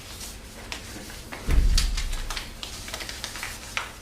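Scattered clicks and rustles of things being handled, with a loud low bump about a second and a half in.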